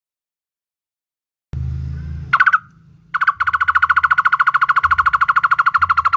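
Barbet (takur) calling: after a second and a half of silence, one short note about two seconds in, then from about three seconds a fast, even trill of rapid notes, roughly a dozen a second, that runs on past the end. A low hum sits beneath the calls.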